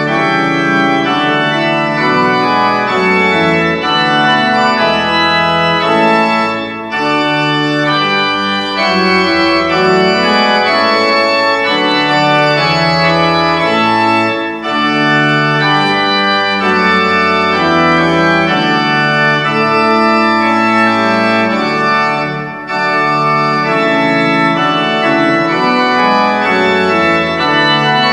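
Church organ playing the postlude after the blessing: full, sustained chords in slow phrases, with three brief breaks between phrases.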